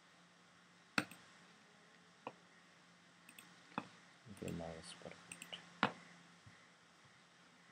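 Four sharp, separate computer mouse clicks spread over several seconds, with a short murmur of voice about halfway through.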